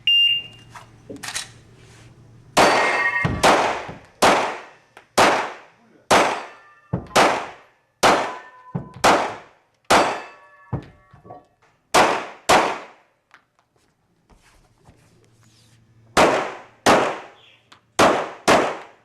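Shot timer's start beep, then a competitor's handgun firing about twenty shots in quick pairs and singles, with a pause of about three seconds before a final string. Some shots are followed by a brief metallic ring.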